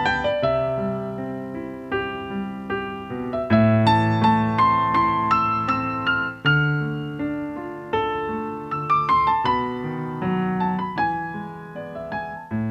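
Background music: gentle piano or electric piano playing a melody over sustained low chords, each note fading after it is struck.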